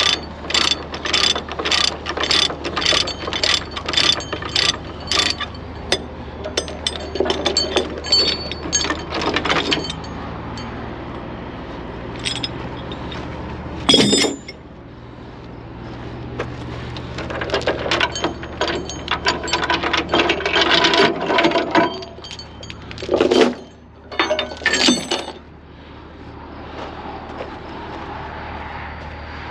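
Ratchet chain binder being cranked to release a tie-down chain, its pawl clicking about twice a second for the first five seconds. Scattered chain clinks follow, then a single sharp knock about halfway through and more clanking and rattling near the end, over a steady low hum.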